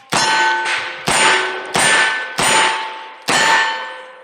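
Steel shooting targets ringing as bullets hit them in quick succession: six sharp clangs about half a second apart, each leaving a bright metallic ring that dies away.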